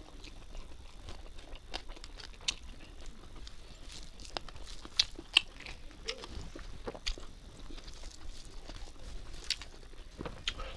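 Close-miked eating by hand: fingers squishing and mixing rice and curry on a steel plate, and chewing, heard as a run of irregular small clicks and wet squishes. Two sharper clicks stand out about halfway through.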